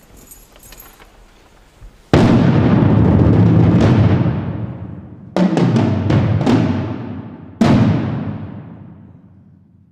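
Percussion ensemble striking drums together in a taiko-style piece: a loud ensemble hit about two seconds in that rings on and fades, a quick cluster of about five hits after five seconds, then another big hit near the end that slowly dies away.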